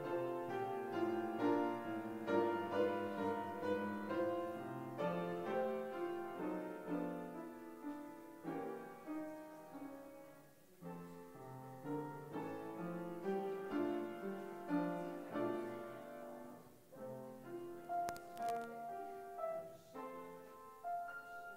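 Piano playing a continuous flow of notes. A couple of faint clicks come near the end.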